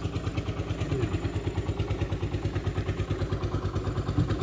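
Boat engine idling with a steady, rapid throb.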